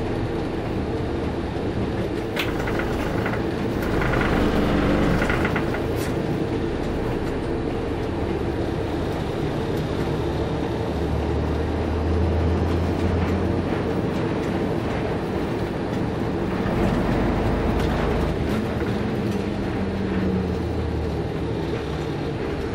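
Large bus's diesel engine running and cabin noise, heard from inside the bus as it drives slowly. The engine's low drone swells for a couple of seconds about halfway through.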